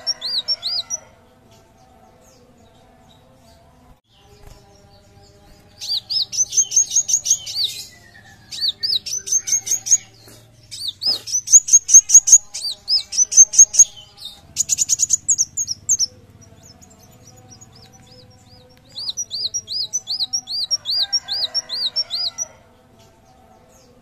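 Kolibri wulung sunbird singing: quick runs of high, repeated arching chirps in several bursts of a couple of seconds each, with short pauses between them.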